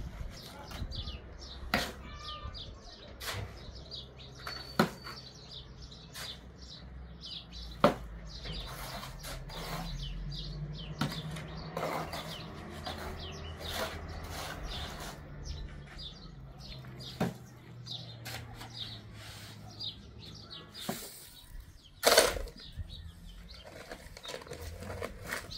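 Irregular sharp knocks and taps, a few seconds apart, with the loudest near the end, over a low steady hum in the middle stretch.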